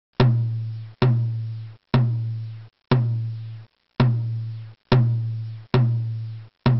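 Music: a deep drum struck about once a second, each hit a low note that fades away before the next.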